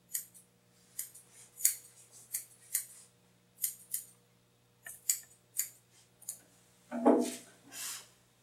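Curved grooming scissors snipping through a Shih Tzu's coat: a run of about fifteen short, crisp snips at an uneven pace. A brief louder sound follows near the end.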